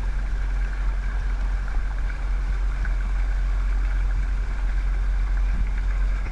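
Motorboat engine running steadily, a continuous low rumble with a faint steady whine above it.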